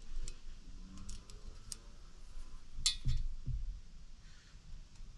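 Light metallic clicks and ticks of a steel feeler gauge blade being handled and slid against a piston ring in a cylinder bore of an aluminium engine block, checking the ring end gap. The sharpest click comes a little past halfway, followed by two low thumps.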